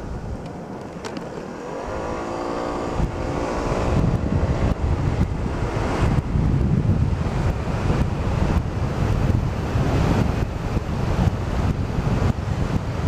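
Wind buffeting the microphone on a scooter ride, with the scooter's engine note rising as it pulls away about two seconds in. The wind rush then builds and stays loud as speed picks up.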